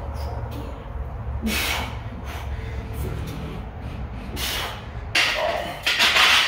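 A man breathing out hard through his mouth with each barbell bench-press rep, a hissing breath about every three seconds. Near the end comes a longer, louder straining exhale as he presses.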